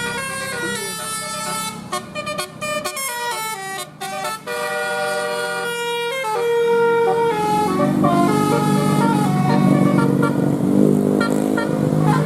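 Tour bus 'telolet basuri' musical horn playing a tune, a quick run of stepped notes. For the last few seconds a louder, lower drone takes over.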